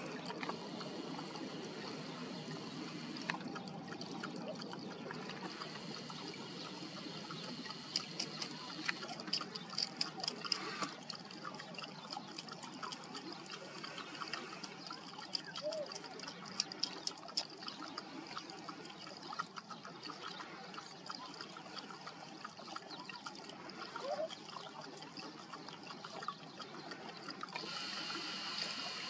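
A mother dog and her puppies lapping water from a bowl, then the puppies suckling at her teats. Wet lapping, smacking and clicking sounds, busiest in the middle, with two faint short squeaks.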